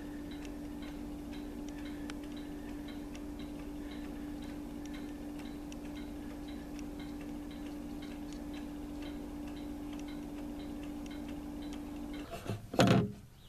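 A clock ticking steadily with a low hum under it; the hum stops near the end, followed by a brief, louder vocal sound.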